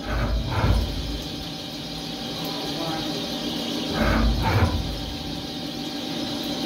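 CNC milling machine cutting a 6061 aluminium block with a small end mill under flood coolant. Steady spindle and cutting noise, with a louder surge of cutting at the start and again about four seconds in.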